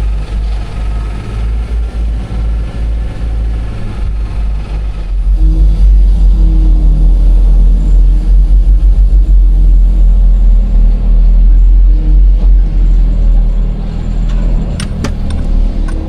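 A vehicle running with a loud, fluttering low rumble. It gets louder about five seconds in, as if the engine is pulling harder, and there are a few sharp clicks near the end.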